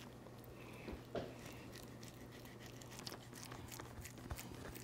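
Faint sounds of a knife trimming a raw beef brisket on a wooden cutting board: soft cutting and tearing through meat and fat, with scattered small clicks and rustles.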